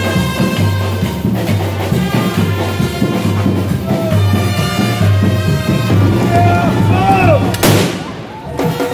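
Music with a steady beat and crowd voices, then a small ceremonial black-powder cannon fires once near the end with a single loud bang.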